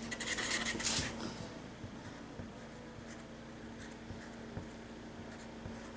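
A Sharpie marker drawing short strokes on a painted polymer clay dish: a quick run of faint scratchy strokes in the first second or so, then only occasional light touches.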